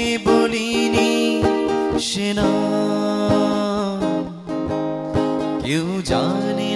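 Acoustic guitar accompaniment under a man singing long held notes, his pitch gliding up and down a little before the end.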